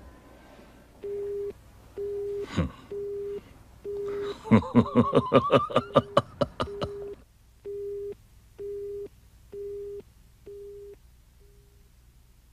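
Telephone busy tone through a handset, a single low beep repeating about once a second: the other end has hung up. From about four and a half to seven seconds in, a man laughs loudly in a quick run of bursts over it.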